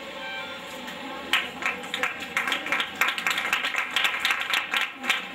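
Audience applauding: many hands clapping unevenly, starting about a second in. Background music with held notes fades out before the clapping begins.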